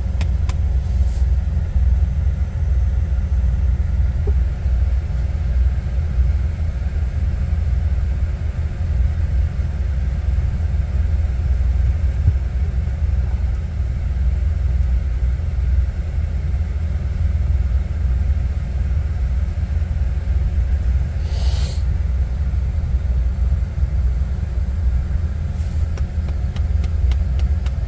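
Steady low rumble, with one short hiss about three-quarters of the way through.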